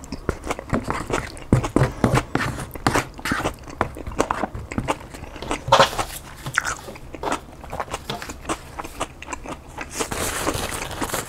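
Close-up chewing and biting of a chicken burrito bowl, wet mouth clicks and smacks repeating through. Near the end a paper bag rustles as it is handled.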